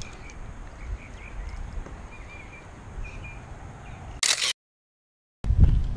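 Wind buffeting an action camera's microphone, with faint bird chirps. About four seconds in comes a short loud noise, then a second of dead silence, then heavier wind rumble.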